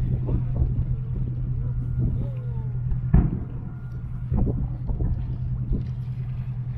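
A distant firework shell bursting with a single dull boom about three seconds in, over a steady low hum and scattered voices of onlookers.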